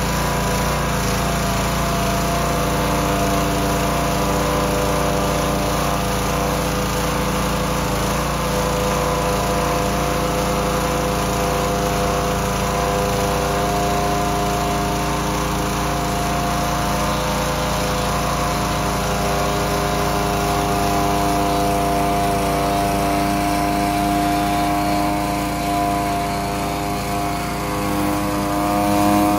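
Pressure washer running steadily while its 15-inch surface cleaner is pushed over wooden deck boards. The spinning spray bar hisses under the housing over a constant motor-and-pump drone.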